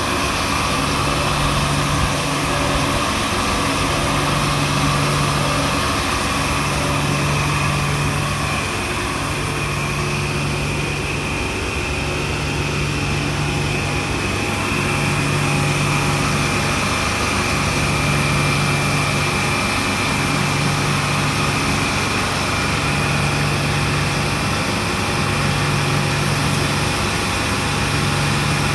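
Poultry slat washer running: a steady motor hum with a steady hiss, and a low tone that pulses on and off about every two seconds.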